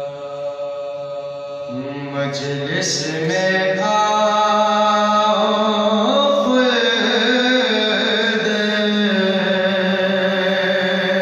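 Unaccompanied male voice chanting a qata, Urdu elegiac poetry in marsiya-khwani style, in long held notes, with a rise in pitch about two seconds in.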